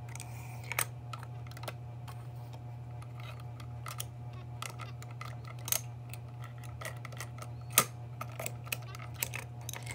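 Small plastic model garbage carts being handled on a wooden tabletop and against a model rear-loader truck: scattered light clicks and taps, a louder knock about 8 seconds in, over a steady low hum.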